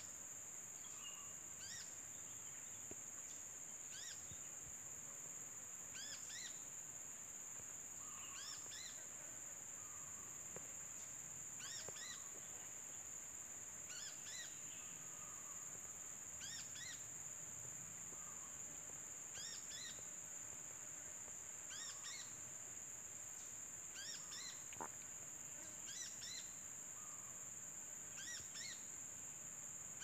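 Steady high-pitched insect drone, with faint short chirps repeating in small groups about every two seconds.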